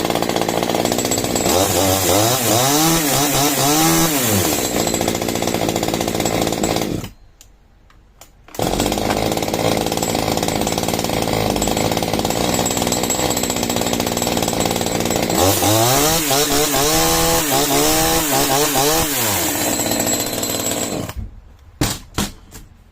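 Palmera two-stroke gasoline chainsaw running on its first start, revved up and down twice. About seven seconds in it drops to near quiet for a second and a half, then runs again at full level. It dies away near the end, followed by a few clicks.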